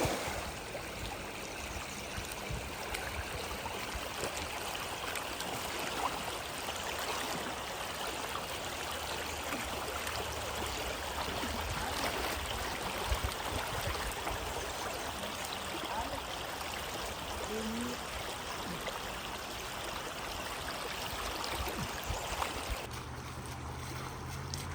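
Steady rush of flowing river water, an even hiss with a few faint knocks. A low hum comes in near the end.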